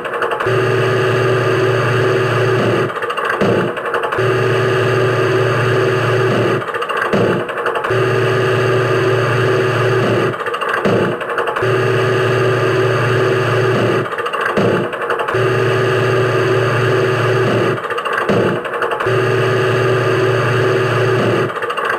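Engine-like running hum sound effect, a clip of a few seconds looped over and over, with a short dip and change about every four seconds.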